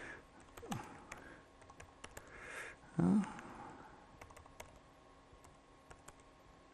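Computer keyboard typing: scattered, irregular single key clicks as a short command is typed.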